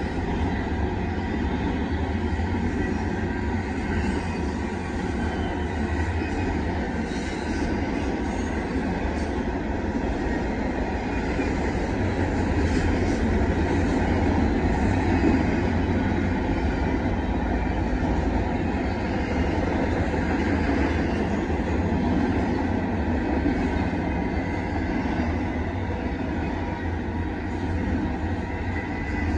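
Double-stack container cars of a KCSM intermodal freight train rolling past a grade crossing: a steady noise of steel wheels on the rails, heaviest in the low end, with no break for the whole stretch.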